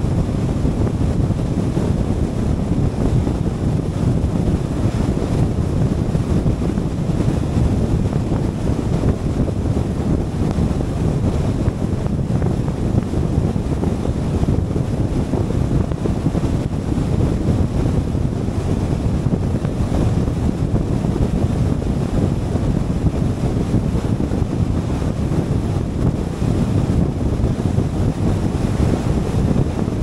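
Steady wind rush and road rumble of a car driving at speed, a deep, even roar buffeting the microphone without a break.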